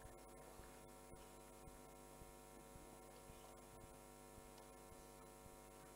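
Near silence: a steady low electrical mains hum with many overtones, with faint ticks about twice a second.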